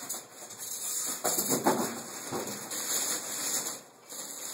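Plastic (nylon) wrapping on a computer case rustling and crinkling as it is handled and pulled off, in irregular bursts, loudest between about one and two and a half seconds in.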